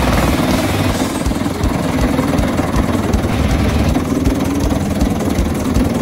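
Bruno TITAN forestry chipper running, a loud and steady mechanical sound with a dense low pulsing.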